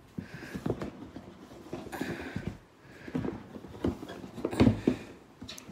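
Cardboard game-box lid being worked off a tight-fitting base: scattered soft taps and fingers on cardboard, with a couple of brief scraping rubs as the lid slides.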